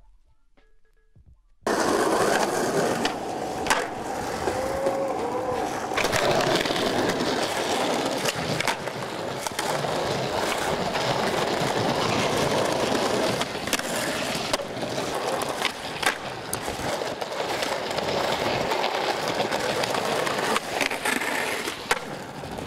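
Near silence, then about two seconds in a skateboard's wheels start rolling on rough pavement, a steady loud grinding noise, with several sharp clacks of the board along the way.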